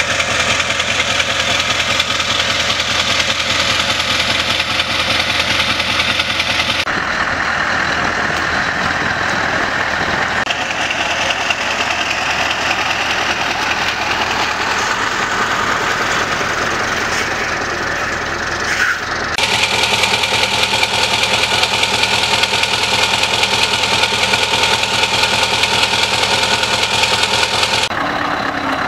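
Scania R620's V8 engine idling through a straight-pipe exhaust, running steadily. The tone changes abruptly about 7, 19 and 28 seconds in, where separate recordings are cut together.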